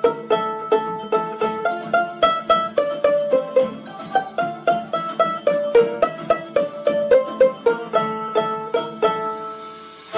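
Background music: a quick, bright tune of plucked-string notes in a banjo-like style, easing off near the end.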